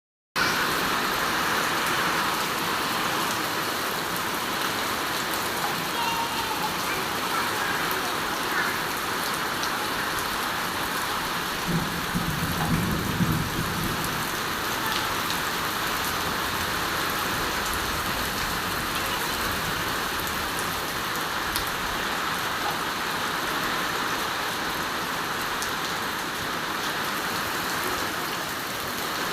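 Steady rain falling, an even, continuous hiss, with a brief low rumble about halfway through.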